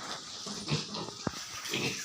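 Young Duroc piglets grunting in several short calls, with a sharp click a little past halfway.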